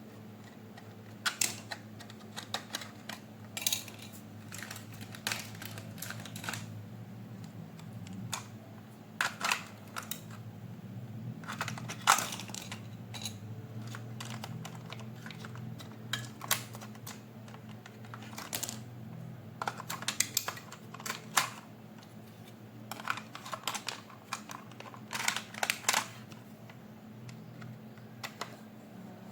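Irregular clicks, taps and brief rattles of hard plastic toy parts and packaging being handled, some in quick clusters, over a faint steady low hum.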